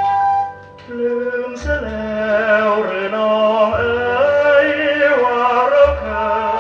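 Instrumental introduction of an old Thai luk krung song played from a vinyl record: a wavering melody line over sustained accompaniment, with low bass notes about every two seconds, and some record hiss.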